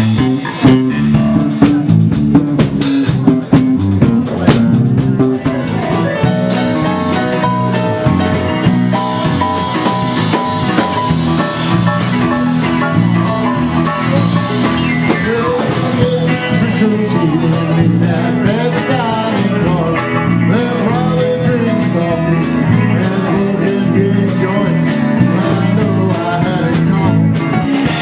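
Live band playing a song: electric guitar and drum kit, with a woman singing lead into a microphone. Drum hits stand out most in the first few seconds.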